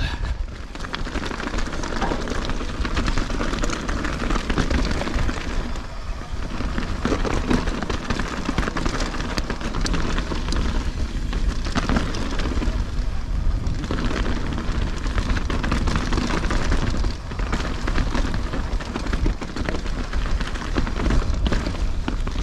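Mountain bike ridden over a rough, stony trail, heard from a chest-mounted action camera: a continuous rumble of wind on the microphone under a steady rattle of knocks and clicks from the tyres and bike on the stones.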